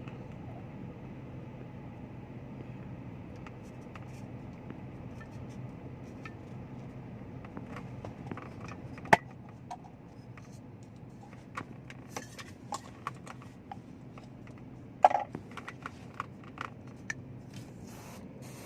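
A steady low hum under a run of sharp clicks, knocks and light scrapes, as of tools and small metal or plastic parts being handled. There are two loud knocks, about nine seconds in and about fifteen seconds in.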